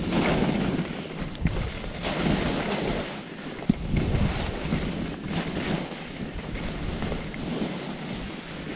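Skis scraping and carving over cut-up piste snow, the hiss swelling with each turn, mixed with wind buffeting the camera's microphone. A sharp click sounds a little under four seconds in.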